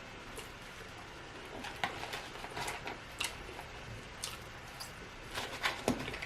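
Close-miked chewing with irregular wet mouth clicks and lip smacks, a few short snaps a second.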